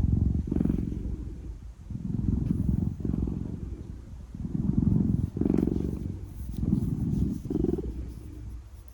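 A big domestic cat purring deeply and closely, the purr swelling and fading with each in- and out-breath, about four breaths.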